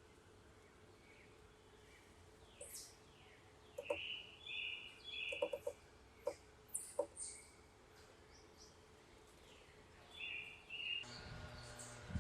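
Wild birds calling: short high chirps and quick downward-sliding call notes, clustered a few seconds in and again near the end, with a few faint short ticks among them.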